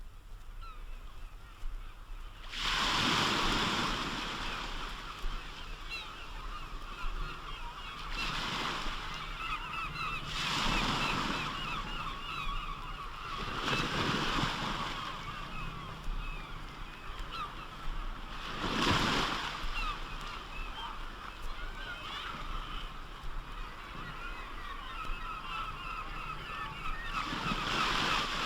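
A dense, continuous chatter of many seabirds calling. Waves break and wash in about half a dozen times, each surge lasting a second or two.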